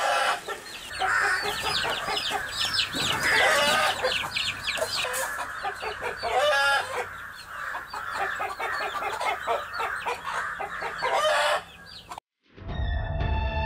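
Domestic hen clucking with her chicks peeping, many short high calls over the lower clucks. Near the end the sound cuts off and music starts.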